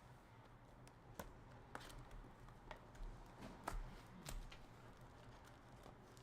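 Faint clicks and taps of hands handling hockey trading cards and packs, scattered irregularly and mostly in the first two-thirds, over a low steady hum.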